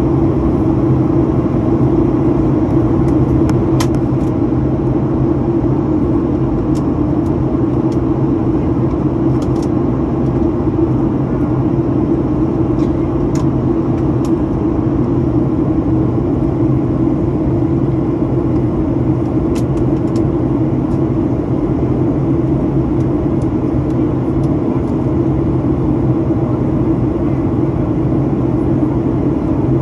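Boeing 737 MAX jet engines and airflow heard from inside the cabin: a steady, loud drone with a low hum, and a few faint ticks.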